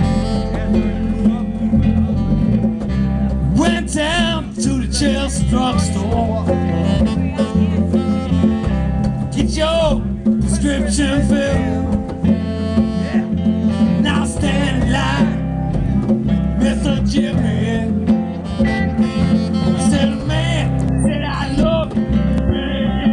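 Live band playing: acoustic guitar, electric bass, congas and hand drum, and saxophone, with a wavering melodic line over a steady bass groove.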